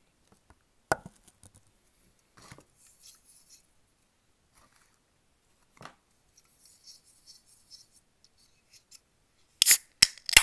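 A glass of ice set down on a wooden table with a sharp knock about a second in, then soft handling sounds and a light knock as a soda can is placed down. Near the end, the aluminium soda can is cracked open: a few sharp snaps of the pull tab, followed by a short fizzing hiss. The can opening is the loudest sound.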